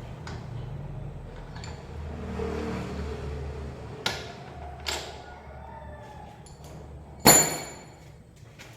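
Metal parts of a mountain-bike suspension fork being worked on: a couple of sharp clicks, then one loud metal clank about seven seconds in that rings briefly. A low vehicle rumble fades out in the first seconds.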